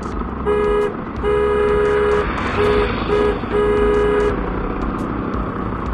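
A vehicle horn honking five times in quick succession, with short and second-long blasts in a two-note tone. Underneath runs the steady rumble of engines in slow road traffic.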